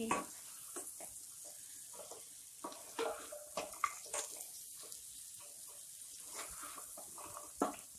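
Cluster beans being stirred into masala with a wooden spatula in a kadai: irregular scrapes and light knocks of the spatula against the pan over a faint, steady sizzle.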